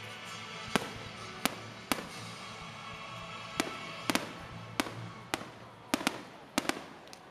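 Aerial firework shells bursting overhead: about a dozen sharp bangs at irregular intervals, several coming in quick pairs in the second half.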